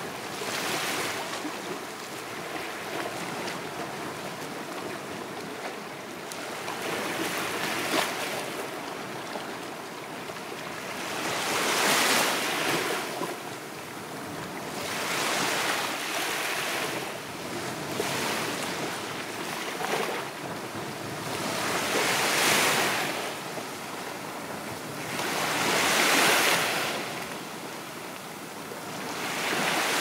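Sea waves breaking and washing up a beach, each wash swelling and fading about every three to four seconds.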